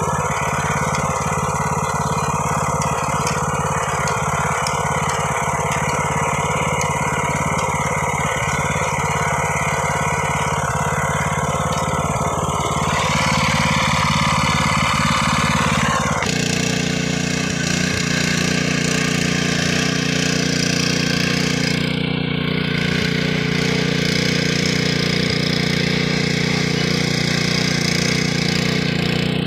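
Ogawa rotary tiller's small engine running steadily. About halfway through, the sound changes abruptly to a steadier, lower hum while the tiller churns the soil.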